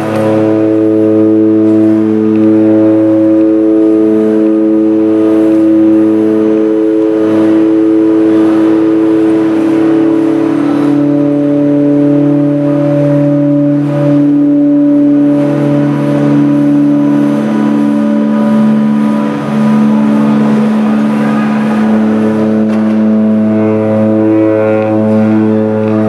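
Live improvised drone music from an amplified instrument: a loud, sustained cluster of several held notes, with single notes shifting to new pitches about ten seconds in and again near the end.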